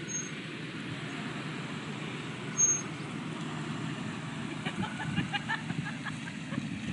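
A car driving by on a paved driveway, a steady low rumble of engine and tyres.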